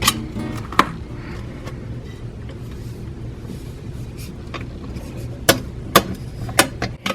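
A few sharp metallic clicks and knocks, one about a second in and a cluster of three near the end, over a low steady hum: handling of a metal fire alarm pull box.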